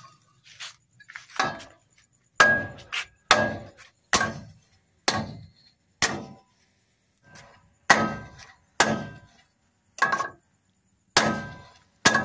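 Hammer blows on a Howo dump truck's wheel hub, pounding the broken stud bolts out. About a dozen sharp metal-on-metal strikes come roughly one a second, each with a short ring.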